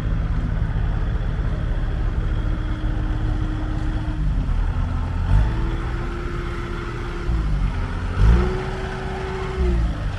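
Bobcat S250 skid steer loader's diesel engine running, its pitch dropping and climbing again a couple of times as it is worked, with a few brief clunks.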